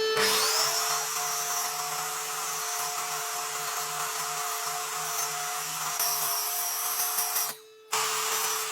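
An electric power tool spins up with a rising whine and then runs steadily. It breaks off for a moment near the end, then runs on.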